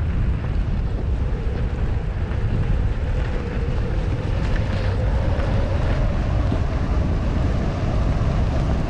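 Wind buffeting a skier's body-mounted camera microphone during a fast downhill run on groomed snow, with the skis hissing over the snow beneath. A faint whine slowly rises in pitch underneath.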